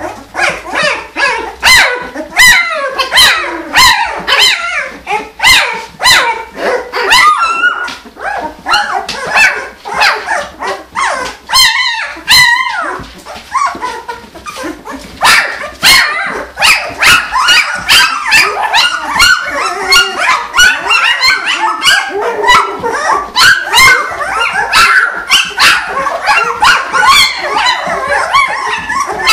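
A litter of 16-day-old puppies yipping, squeaking and whining, many short high-pitched cries overlapping without a break.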